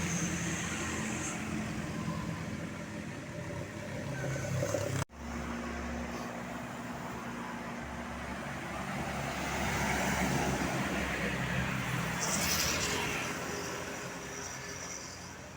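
Road traffic: vehicle engines running and passing by, swelling and fading, with a sudden break about five seconds in.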